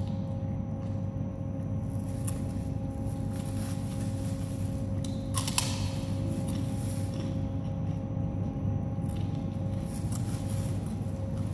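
Eating sounds over a steady low hum: scattered soft clicks and crunches of someone eating a boxed rice meal with fried tofu, tempeh and salted fish, with one brief louder crackle about five and a half seconds in.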